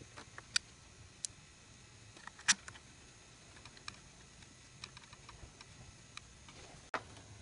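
Scattered sharp clicks and ticks of a flathead screwdriver prying at the plastic pump power connector on the bottom of a Bosch ABS control module, the loudest about two and a half seconds in.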